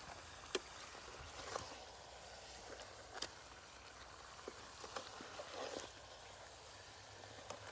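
Metal ladle working in a pan of simmering fish-head curry, spooning gravy over the fish heads, with scattered short clinks and taps of metal against the pan over a soft steady hiss.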